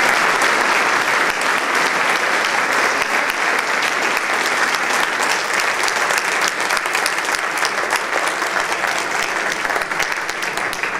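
A large congregation and clergy applauding, a dense, steady clapping that thins slightly near the end.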